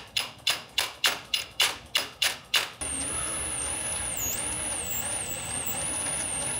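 Rapid, evenly spaced metallic strikes, about three a second, each ringing briefly, that stop abruptly a little under three seconds in. A steady hiss with a thin, wavering high whine follows.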